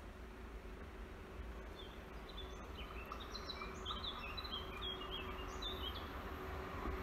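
Electric locomotive hauling a freight train, approaching: a faint steady hum that slowly grows louder. A small bird chirps a quick run of short high notes from about two seconds in.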